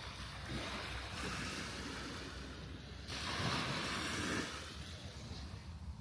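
Small waves lapping and washing onto a sandy beach, with one louder wash about three seconds in that lasts a little over a second, over a low rumble of wind on the microphone.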